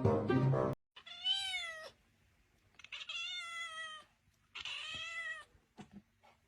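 A domestic cat meowing three times. Each meow is a drawn-out call lasting about a second, rising and then falling in pitch, with pauses of about a second between them.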